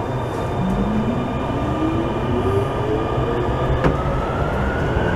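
Barcelona Metro train accelerating through a tunnel: the electric traction motors whine, rising steadily in pitch as it gathers speed, over a steady rumble of wheels on rails. A single sharp click comes a little under four seconds in.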